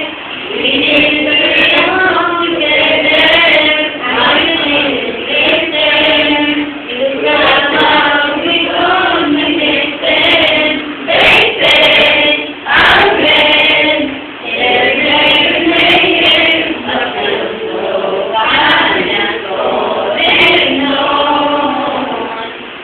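A group of teenage students, boys and girls, singing a song together, phrase after phrase with short breaks.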